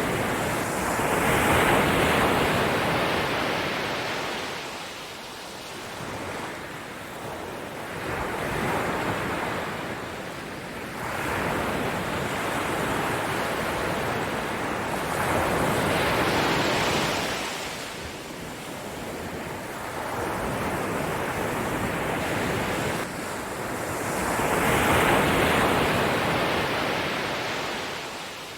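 Ocean surf: waves breaking and washing in, the rush of water swelling and fading in slow surges every several seconds.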